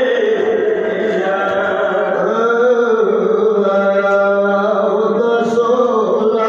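A male voice chanting a Pashto noha, a Shia lament for Imam Hussain, in long drawn-out notes that bend slowly up and down.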